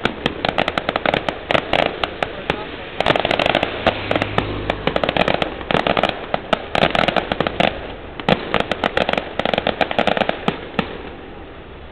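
Firecrackers bursting in quick, irregular succession, a dense run of sharp bangs in loud clusters that stops shortly before the end.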